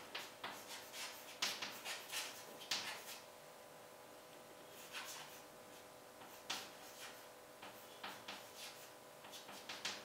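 Chalk writing on a blackboard: short scratchy strokes and taps in several clusters, with a pause of a second or two around the middle.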